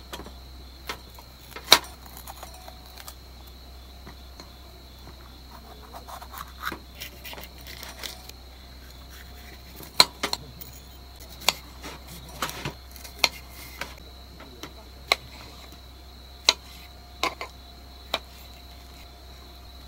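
Irregular sharp clicks and clinks of utensils and food containers being handled during meal preparation, over a steady chirping of crickets.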